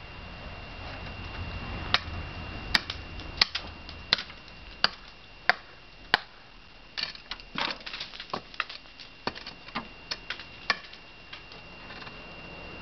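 Sharp knocks of something banging on solid icicles to break them loose, about one stroke every two-thirds of a second for several seconds, then a run of lighter, irregular clicks.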